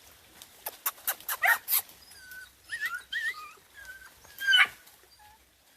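Dog whining in short rising and falling yips, after a quick run of sharp clicks and scuffs in the first two seconds.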